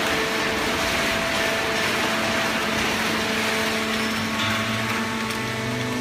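Fully automatic hydraulic horizontal cardboard baler and its feed conveyor running, giving a steady mechanical hiss and rumble over a few steady hums from the pump motor. A deeper hum joins about four and a half seconds in.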